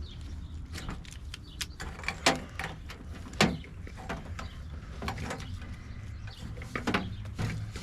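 Irregular clicks and knocks of tools and metal parts being handled during work at the truck's battery, two louder clanks about two and three and a half seconds in.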